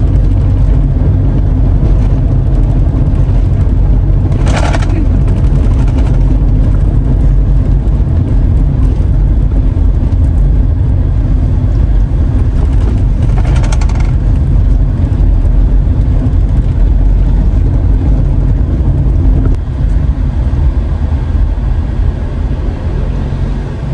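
A vehicle on the move: a loud, steady low rumble of engine and road noise, with two brief crackles, about five and fourteen seconds in.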